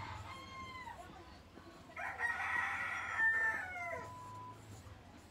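A rooster crowing: one crow trails off about a second in, then a louder crow from about two to four seconds in, ending with a falling pitch.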